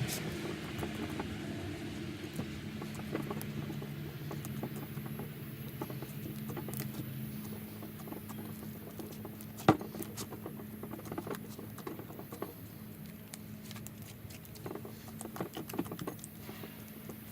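Hands kneading and squishing slime with Model Magic mixed in, making many small sticky clicks and crackles, with one sharper click about ten seconds in.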